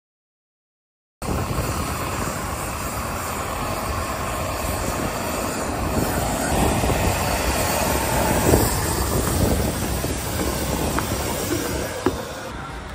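Outdoor airport apron noise: a steady rushing mix of wind and running ground equipment. It starts about a second in, after silence, and has a short sharp knock near the end.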